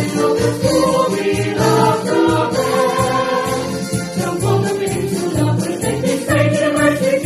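A choir singing a university hymn over instrumental accompaniment, with a steady low beat about twice a second.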